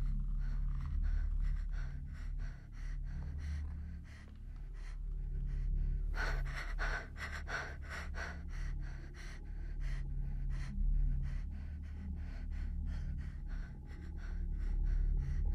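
Film soundtrack of a young woman's tense, frightened breathing and gasps over a low steady drone, with many small clicks throughout; the breathing grows strongest about six seconds in and lasts a few seconds.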